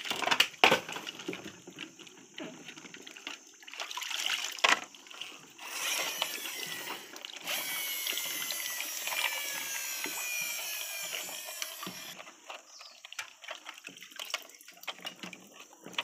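Water sloshing and splashing in a shallow basin as plastic toy trucks are moved about in it, with a couple of sharp knocks of plastic in the first five seconds. For several seconds in the middle, a steady stream of water runs and splashes off a toy dump truck lifted out of the water.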